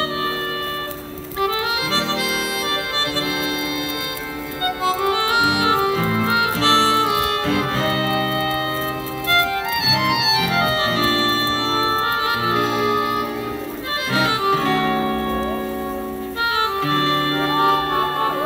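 Live band playing an instrumental passage through a concert PA: a sustained lead melody over keyboard chords and electric guitar, the chords changing every second or two.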